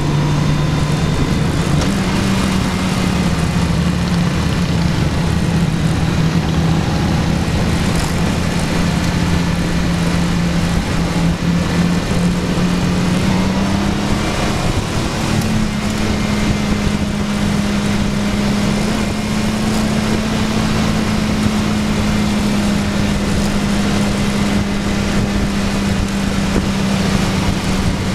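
Motorcycle engine running steadily at road speed, heard from the bike being ridden, with wind noise over the microphone. The engine note rises a step about two seconds in and again about fifteen seconds in as the bike speeds up.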